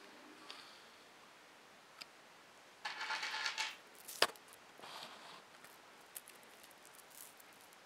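Quiet handling noises: a short rustle about three seconds in, a sharp click just after it, then another brief rustle, with faint ticks otherwise.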